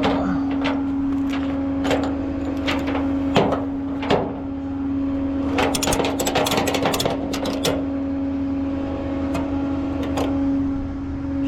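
Tow truck running with a steady hum, with scattered sharp metallic clicks and knocks and a quick rattle of them about six to seven and a half seconds in.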